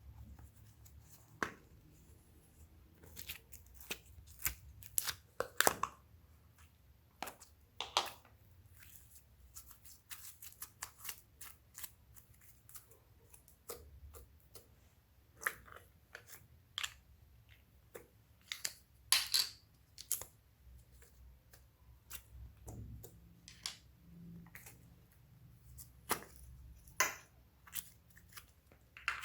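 Glossy slime being kneaded and stretched by hand, giving irregular sticky clicks and pops, some louder than others.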